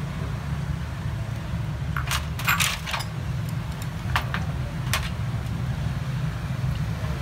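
Chopsticks and utensils clinking against a ceramic plate and a stainless steel tray. There is a short cluster of sharp clinks about two seconds in, then single clinks around four and five seconds, over a steady low hum.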